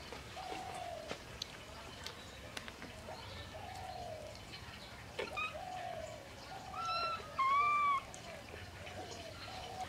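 Animal calls: a short arched note repeated about once a second, with two louder, higher calls about seven seconds in.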